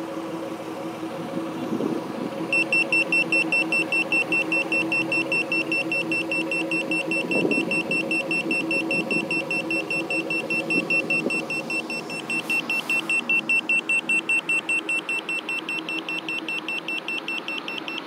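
Handheld Smart Sensor carbon monoxide meter sounding its alarm, a rapid high-pitched beeping that starts a couple of seconds in, as it samples car exhaust at the tailpipe. The car's engine idles steadily underneath.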